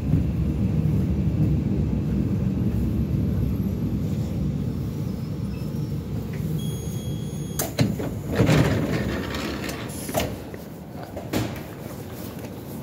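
ЭП2ДМ electric multiple-unit train rolling slowly into a station, a steady low rumble that fades over the first several seconds. Near the middle a short high beep sounds. Then the sliding passenger doors open with a sharp knock and a brief loud rush of noise, followed by a couple of lighter knocks.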